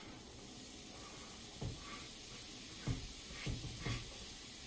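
Diced vegetables sizzling with a steady hiss as they go into a hot cast-iron frying pan. About two seconds in and three more times near the end come short, dull knocks as the last pieces are pushed off a wooden chopping board into the pan.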